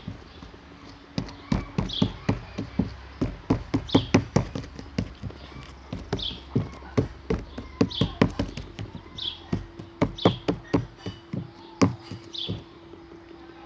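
Slime being squeezed and kneaded by hand, making rapid, irregular clicks and pops.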